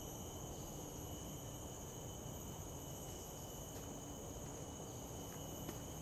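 Steady chorus of tropical forest insects: several high, even tones held together over a low hiss, with a few faint footsteps on the leaf-strewn path near the end.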